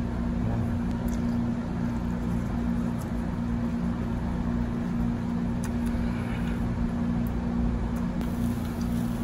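Steady low mechanical hum with a rumble underneath, like a ventilation fan running, holding level throughout.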